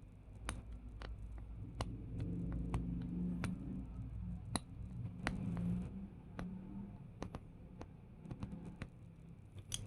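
Sharp clicks and snaps, a dozen or more at uneven intervals, from a strong magnetic cabinet latch being snapped together and pulled apart by hand, over a low rumble of handling.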